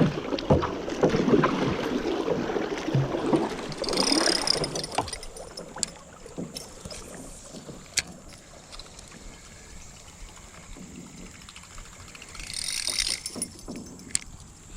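Water splashing and rushing around a kayak on a fast-flowing creek, louder for the first few seconds and swelling again near the end, with a few sharp clicks.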